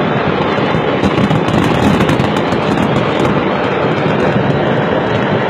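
Stockpiled fireworks going off in a rapid, irregular crackle of pops and bangs, thickest about one and a half to two and a half seconds in. Underneath is the steady rush of a moving car's road and wind noise.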